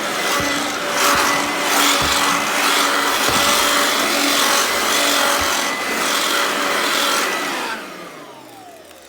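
Hoover Concept Two HandVac running with a steady motor whine, the nozzle rasping back and forth over a surface about once a second as it picks up a mess. Near the end it is switched off and the motor winds down with a falling whine.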